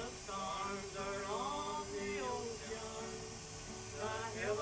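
Background music: a man singing over held instrumental notes, his voice gliding up and down between the sustained tones.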